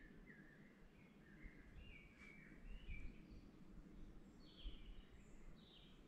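Faint woodland birdsong: several songbirds chirping and warbling in short, high phrases over a low steady rumble, with one brief click about two seconds in.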